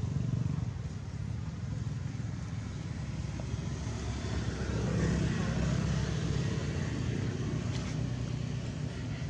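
Steady rumble of road traffic, swelling as a vehicle passes about five seconds in.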